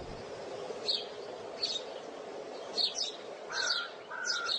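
Small birds chirping: short, high chirps every second or so, with two short lower whistled notes near the end, over a faint steady background noise.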